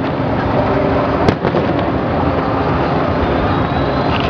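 Fireworks display, aerial shells bursting: one sharp bang about a second in and another at the very end, over a dense, continuous noise from the display.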